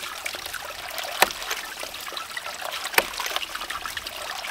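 Hydraulic ram pump's waste valve cycling under water in a bucket: a sharp clack as it slams shut, twice, about every second and three quarters, over steady splashing and trickling of water churning up and spilling from the bucket. The water over the valve does not quiet the clack; the meter reads about 75 dB.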